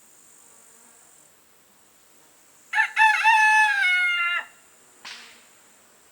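A rooster crowing once: one long call of about a second and a half, held and then dropping in pitch at the end.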